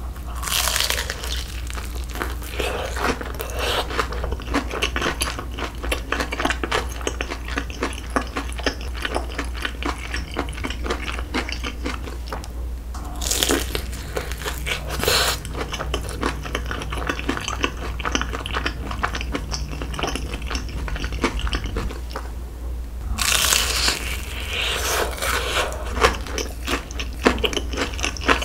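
Close-miked eating sounds of a person biting and chewing crunchy fried food from a skewer: a steady run of small crunches and mouth noises. Louder bites come about a second in, twice around halfway, and again near the end.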